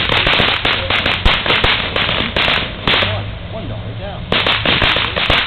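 Ground fountain firework spraying sparks with rapid bursts of sharp crackling pops. The crackle eases for about a second around three seconds in, then comes back thick again near the end.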